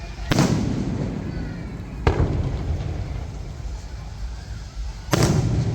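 Fireworks display: three loud shell bursts, about two and three seconds apart, each trailing off in a low rumble.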